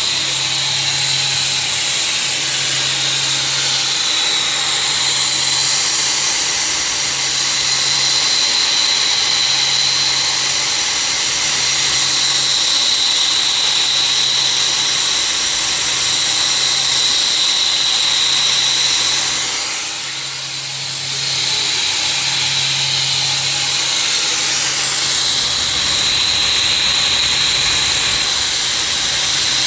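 CNC router spindle running at high speed while milling a cavity into a mold plate: a steady high whine over cutting hiss, with a low hum that comes and goes in stretches of about a second. The sound dips briefly about two-thirds of the way through, then picks up again.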